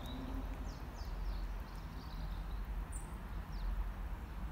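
Small birds chirping, many short falling calls scattered through, over a low, uneven rumble.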